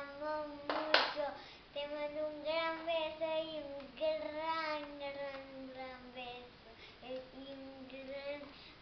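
A young girl singing without clear words, holding long notes that slide up and down, with a sharp knock about a second in.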